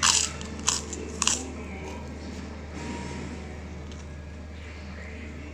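Three crisp crunches as crunchy food is bitten and chewed, all within the first second and a half and louder than anything else. Under them a Javanese song plays quietly in the background over a steady low hum.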